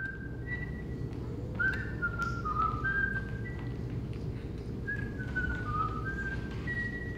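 A person whistling a short tune in clear, separate notes, some sliding up into pitch, over a steady low rumble.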